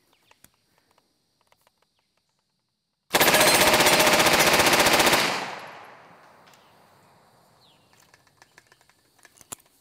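RPB MAC-10 (M-10) submachine gun firing unsuppressed on full auto: one continuous burst of about two seconds, a 30-round magazine emptied at a steel plate. The burst starts about three seconds in and its echo dies away over the next second or two.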